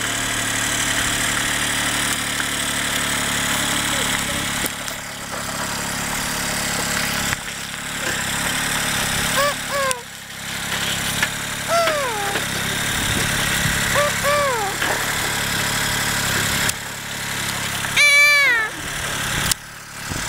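Small tractor engine running steadily as it hauls a loaded log trailer, with a small child's high, sliding calls several times over it, the loudest near the end.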